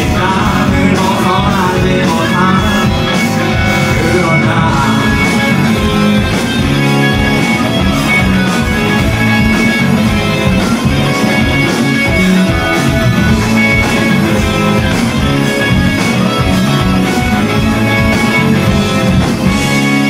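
A rock band playing live: a singer over electric guitars, bass guitar and a drum kit with a steady beat.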